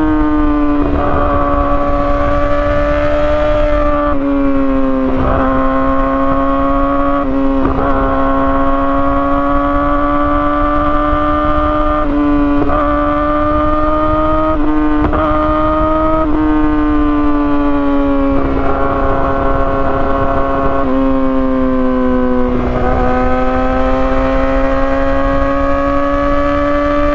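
2017 Yamaha R6's inline-four engine through an Akrapovic exhaust, held at high revs. The pitch dips briefly about a dozen times as the throttle eases off and comes back on, then climbs slowly again each time.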